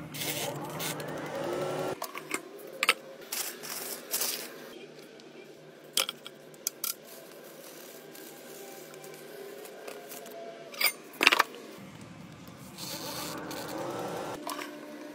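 An air fryer being handled: its timer dial is turned while the fan hums. The hum cuts out about two seconds in and comes back near the end. Scattered light clicks and a pair of sharper knocks come from the handling of the appliance and basket.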